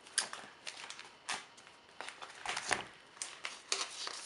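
Sticker sheets and plastic sleeves in a ring binder being handled and leafed through: irregular light rustles and small clicks.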